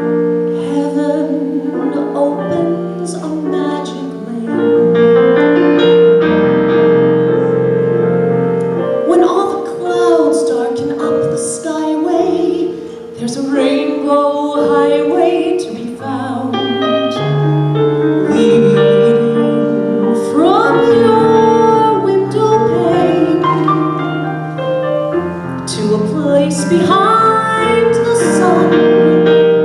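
A woman singing a slow song with piano accompaniment, her voice holding long notes over sustained piano chords.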